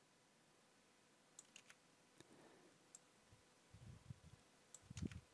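Near silence broken by a few faint, sharp computer mouse and keyboard clicks as text is selected and edited. Some faint low sounds come near the end.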